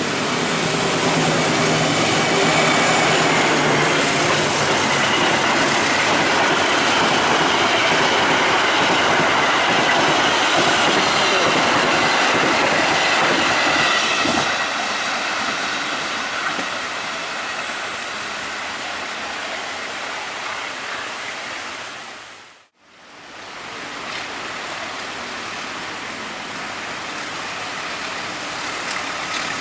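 A train passing at speed: loud rumble and rattle of wheels on rails with a faint high squeal, fading away after about 14 seconds. It cuts off about 23 seconds in, and a quieter, steady rumble of rail noise follows.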